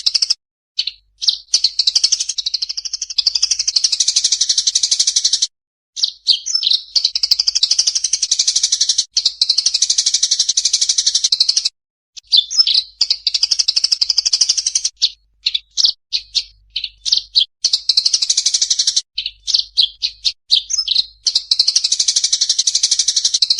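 Rapid, high-pitched songbird chirping and trilling from a compiled recording of lovebird, cililin and Eurasian tree sparrow calls. It comes in long, dense runs broken by short pauses, with looser strings of separate chirps about halfway through.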